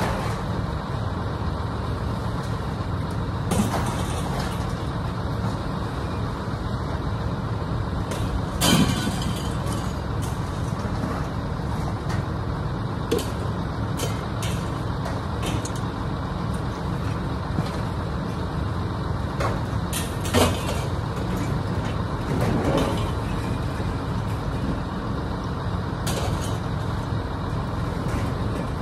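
Steady engine and road rumble of a vehicle driving, with a few sharp knocks and rattles along the way.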